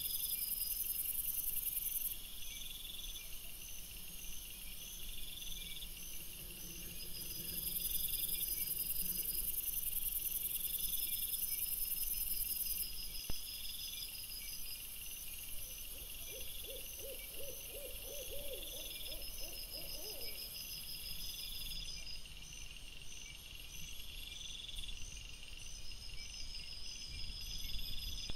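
Crickets and bush crickets chirping: evenly repeated pulsed calls with a high, continuous buzz that switches on and off every few seconds. Just past the middle a lower, rapid warbling trill from another animal lasts about four seconds.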